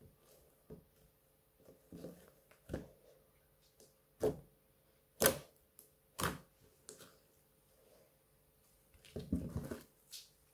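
Glitter slime being pressed and kneaded by hand, giving irregular wet clicks and pops, the loudest about four, five and six seconds in. Near the end, a quick run of clicks as the slime is pulled and stretched.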